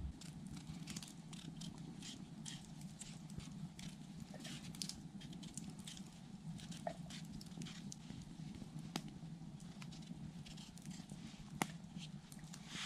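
Wood campfire crackling: irregular sharp snaps and pops over a faint steady low noise, with one louder pop near the end.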